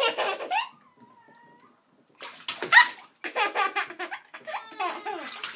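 A toddler laughing loudly in bursts while splashing the bathwater, with a short pause in the laughter about a second in.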